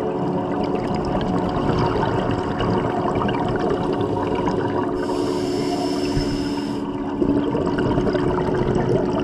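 Underwater sound of a scuba dive: a continuous muffled water rumble with a steady hum, and a hiss of a diver's regulator on an inhaled breath about five seconds in, lasting about two seconds.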